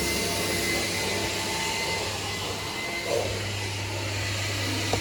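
A 1985 Kärcher coin-operated car-wash vacuum running steadily: a continuous rush of air through the hose with a faint, steady high whine from the motor.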